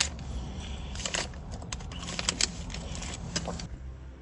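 Crinkling and clicking of food and its paper wrapper being handled, irregular sharp crackles over a low steady hum.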